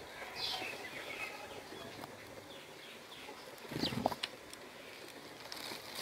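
Sparrows chirping in short, scattered calls, with a brief low thump about four seconds in.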